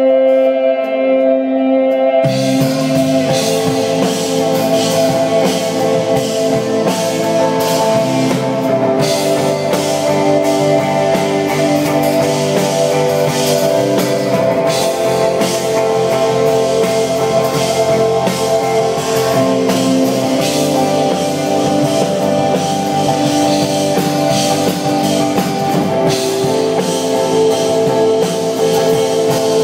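Live rock band with electric guitars and drum kit: held guitar notes ring alone at first, then the drums and full band come in about two seconds in and play on steadily.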